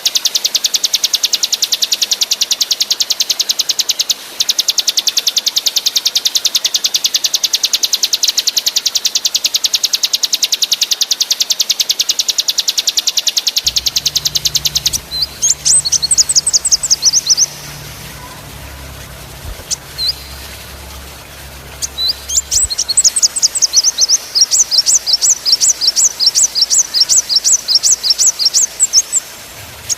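Small songbird singing: a very fast, even high-pitched trill with a brief break, then, about halfway through, runs of separate sharp downward-sweeping notes, about four a second near the end.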